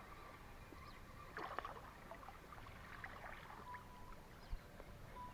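Faint water lapping and gurgling against the hull of a small motorboat, with scattered light clicks and two brief thin tones.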